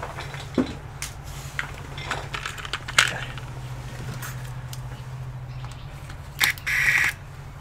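Scattered light clicks and knocks of hands handling laptop parts and screws. Near the end a powered screwdriver runs in two short bursts, removing screws from the laptop's internals.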